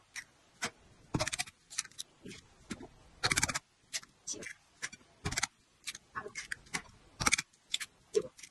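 Raw eggshells cracked and pulled apart by hand, a string of sharp crackling clicks, some of them longer crunches, coming irregularly once or twice a second.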